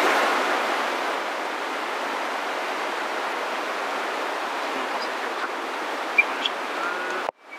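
Steady, even rushing of air as the Robinson R22's main rotor coasts down after engine shutdown, slowing under the rotor brake. The sound cuts out abruptly near the end.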